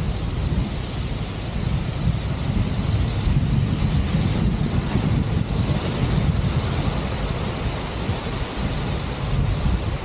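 Wind noise from the airflow of paraglider flight buffeting the camera microphone: a steady low rumble with a constant hiss above it.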